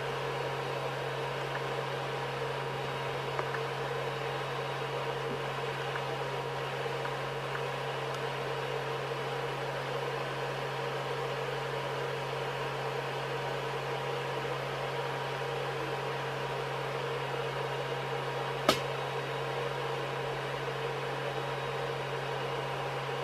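Steady hum and hiss of a 3D printer's cooling fans left running, with a low drone and a few faint steady tones. One sharp click about three-quarters of the way through.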